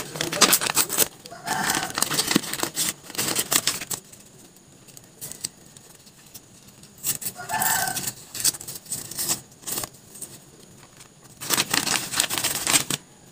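Paper rustling and crinkling as a handmade paper candy pouch is opened and handled, in several short bursts with quieter gaps between them.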